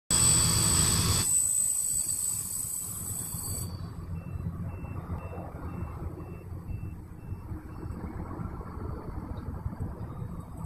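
Steady low outdoor rumble, with a loud hiss during the first second and a faint short beep repeating about twice a second through the middle.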